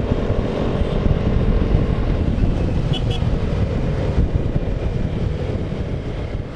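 Road-riding noise, most likely from a motorcycle: wind buffeting the microphone over the steady hum of the engine. It fades away near the end.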